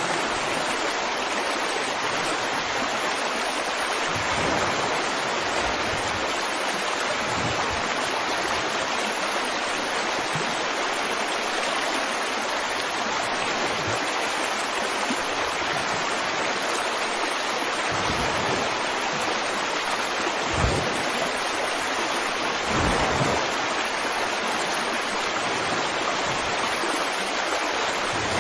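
Flowing water rushing steadily, with a few brief low gurgles along the way.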